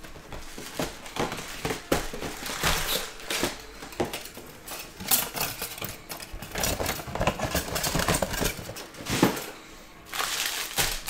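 Cardboard hobby box being opened and its wrapped card packs pulled out and set down: a run of rustling, crinkling and light knocks, with a short lull shortly before the end.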